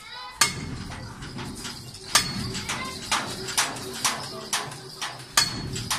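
Sharp metallic clanks from a long steel bar and wheel wrench on a truck's wheel nut, about seven in six seconds, several ringing briefly, as weight is bounced on the bar to tighten the wheel nuts.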